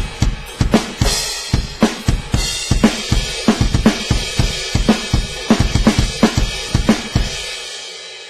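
Sampled rock drum kit from Addictive Drums' Studio Program Rocker preset, triggered from a homemade electronic drum kit: a steady groove of kick and snare hits under hi-hat and cymbals, about two to three hits a second. The playing stops about seven seconds in and a cymbal rings out.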